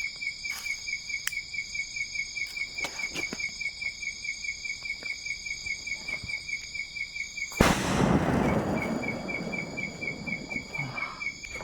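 Night insects chirring steadily, one with a rapid pulsing chirp. About seven and a half seconds in, a single firecracker goes off with a loud bang that rings on and dies away over a couple of seconds.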